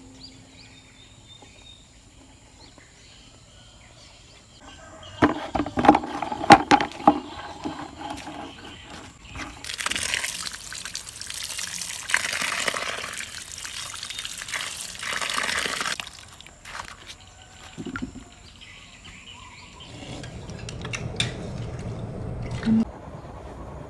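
Water poured over feet in rubber flip-flops, splashing onto them and the ground for about six seconds midway. Before it comes a short run of sharp clattering knocks, the loudest sounds here.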